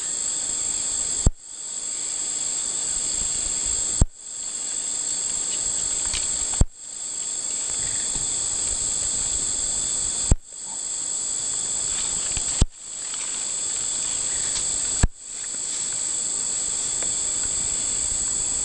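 Steady high-pitched insect chorus ringing in several bands. Every few seconds it is broken by a sharp click and a short drop in sound, where the recording is cut.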